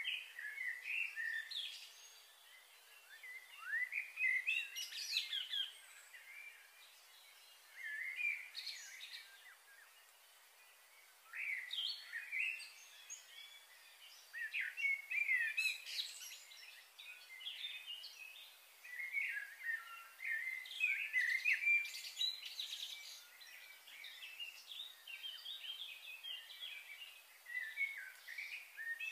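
Several birds chirping and calling in irregular bouts of short, quick chirps, with quieter gaps between the bouts.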